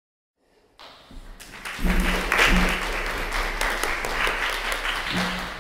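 Audience applauding: the clapping starts about a second in, swells quickly, holds, and begins to die away near the end.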